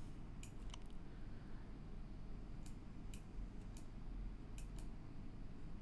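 Scattered, irregular clicks from a computer mouse being used to navigate a 3D model on screen, about ten in all, over a faint low hum.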